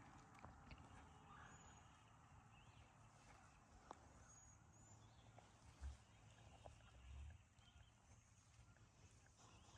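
Near silence in the woods, with faint high bird chirps now and then and two soft low thumps about six and seven seconds in.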